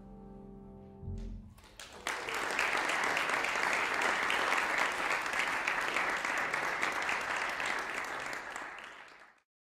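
The last held notes of the alto saxophone performance die away in the first second and a half. Then an audience applauds steadily for about seven seconds, fading out just before the sound cuts off.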